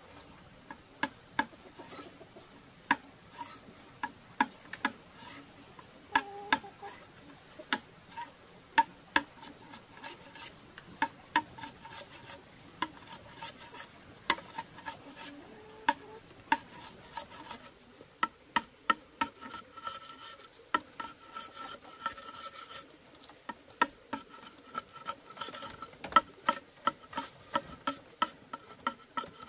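Knife blades scraping and cutting bamboo poles by hand, with sharp knocks of the blade on the bamboo at an irregular pace of about one or two a second.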